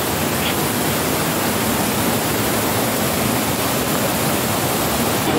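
Steady rushing of a rocky mountain stream, water pouring over boulders.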